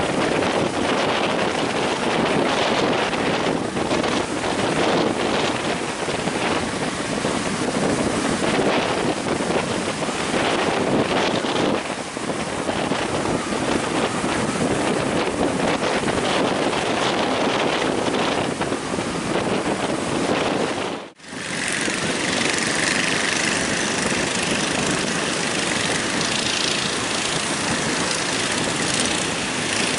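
Strong wind buffeting the microphone over breaking surf, a continuous loud rushing. It drops out briefly about 21 seconds in and comes back hissier and brighter.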